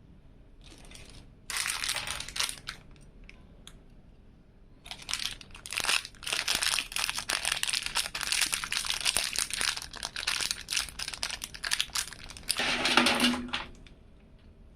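Packaging being handled and crinkled: a short bout of crinkling, then several seconds of near-continuous crinkling that stops near the end.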